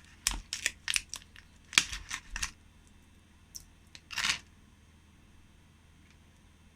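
Screwdriver bits clicking and clattering as they are handled and pushed into their holder: a quick run of small sharp clicks over the first two and a half seconds, then a couple of faint clicks and a short rasp about four seconds in.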